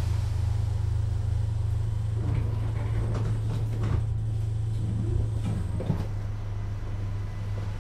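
Duewag B80C Stadtbahn light-rail car, a steady low hum from its equipment with a few scattered knocks and clicks.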